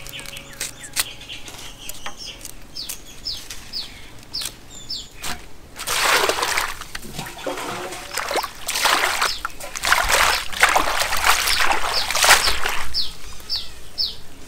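Water splashing and sloshing in several loud bursts through the middle, with small birds chirping in quick, short calls before and after.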